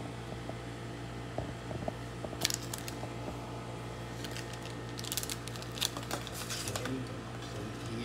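Steady low electric hum of a Revolution touchscreen toaster while it heats, with scattered clicks and rustles of the phone being handled, about two and a half seconds in and again around five to six seconds in.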